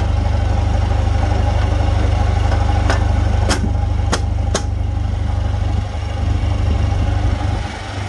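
Tractor engine running steadily after a jump start, its alternator charging the battery. Four sharp clicks come about half a second apart near the middle.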